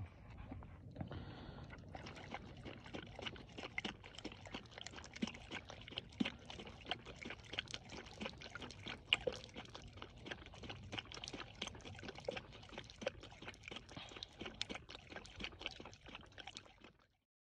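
Dog drinking water from a plastic bottle held to its mouth: a quick, irregular run of wet lapping clicks that cuts off suddenly about a second before the end.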